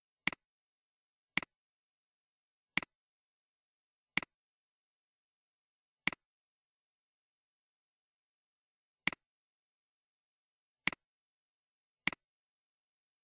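Eight sharp computer mouse clicks, spaced unevenly about one to three seconds apart, each a quick press and a softer release, with total silence between them.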